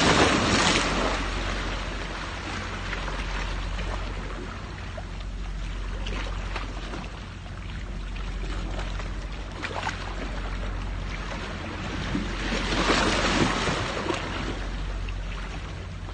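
Steady seashore wash of waves and wind, swelling briefly about three-quarters of the way through, with a few faint clicks.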